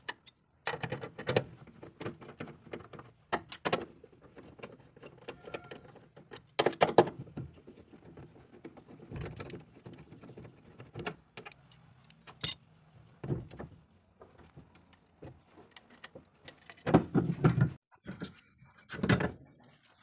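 Irregular metallic clinks and rattles from a socket and bar being worked on the strut top-mount nuts, with a few louder clatters.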